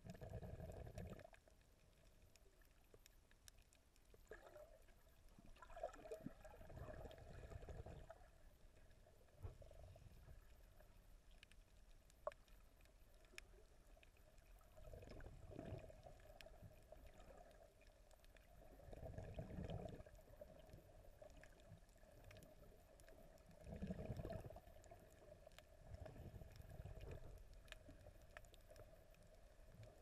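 Faint, muffled underwater water movement as picked up by a submerged camera while snorkelling, swelling in low surges every four to six seconds.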